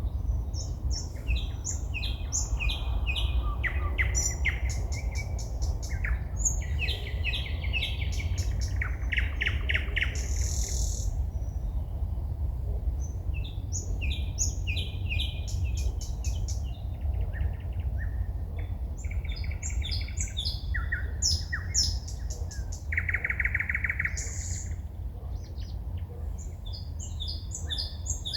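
A songbird singing at night: a long run of varied phrases of rapid repeated notes, trills and clicks, with short pauses between them, over a steady low rumble.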